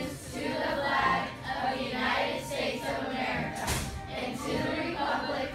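A classroom of children reciting the Pledge of Allegiance in unison, with music playing underneath.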